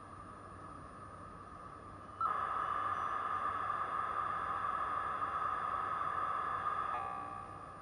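US Robotics V.Everything 56K modem's speaker playing a V.90 dial-up handshake carried over a VoIP line. A faint steady hiss switches suddenly, about two seconds in, to a much louder hissing data signal for about five seconds. Near the end it gives way to a fading chord of several steady tones.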